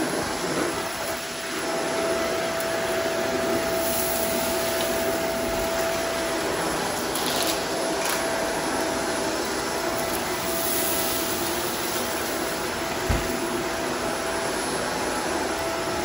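Shark Apex upright vacuum running steadily with a constant whine as it is pushed over a bare concrete floor. A single short thump comes about thirteen seconds in.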